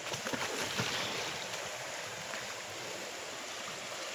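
Creek water rushing steadily over a shallow bed, with a few splashes in the first second as the water is churned.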